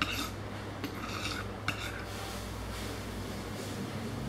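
Restaurant ambience: dishes and cutlery clink a few times in the first two seconds, over a steady low hum.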